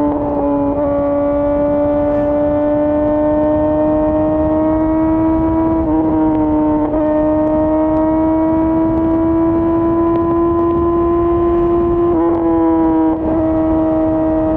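Yamaha R6's inline-four engine through an Akrapovic full exhaust, running at high revs under way, its pitch climbing slowly. The pitch dips briefly about half a second in, around six seconds in and around twelve seconds in. A low rush runs underneath it.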